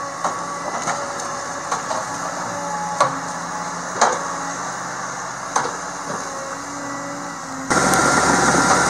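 Log loader's diesel engine running steadily while its grapple handles pine logs, with a handful of hard wooden knocks as logs are set down and bump together. About a second before the end it cuts to a louder, steady engine noise.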